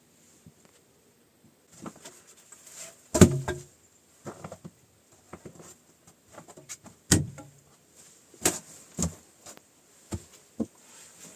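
Irregular knocks and clatter of hands working with objects at close range, with no steady rhythm. The loudest knocks come about three seconds in and about seven seconds in, with smaller ones near the end.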